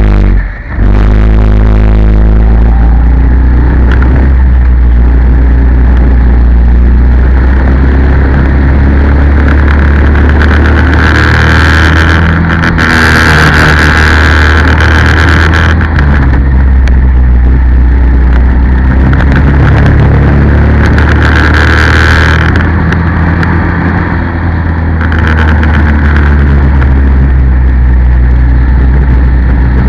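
Racing kart engine running hard through laps of a circuit, picked up close by an onboard camera. About half a second in it drops sharply for a moment, then builds again, its pitch rising and falling through the corners and straights.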